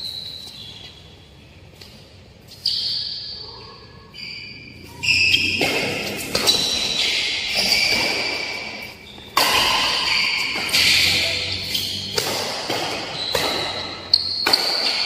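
Badminton rally: rackets strike the shuttlecock in a series of sharp hits every second or two, each echoing through a large hall. Between the hits come high squeaks, typical of court shoes on the floor.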